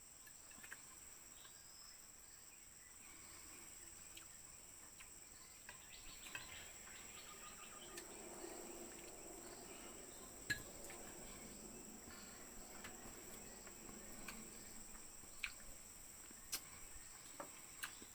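Crickets chirring in a steady, high-pitched drone, with a few faint clicks.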